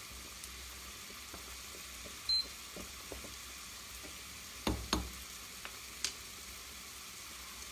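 Artichoke slices sizzling steadily in a pan. A short high beep comes about two seconds in, and a few sharp clinks of a utensil against the cookware come near the middle and once more a second later.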